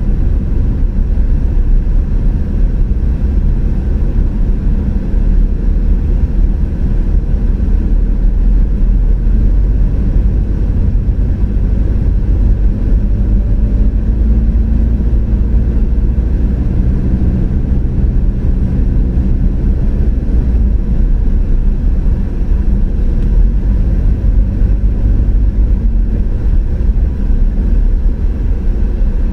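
Car driving along a road: steady low rumble of tyres and engine at cruising speed, with a faint engine hum that rises and falls slightly.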